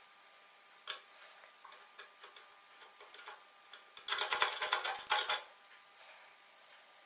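A thin metal tool scraping and rattling inside the bobbin cavity at the tip of a Singer 29K33 patcher's horn: a few light clicks, then a quick run of rapid ticks about four seconds in, lasting over a second.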